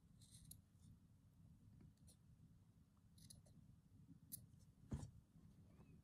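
Small scissors snipping through thin cotton fabric: several faint, separate snips, with a louder knock about five seconds in.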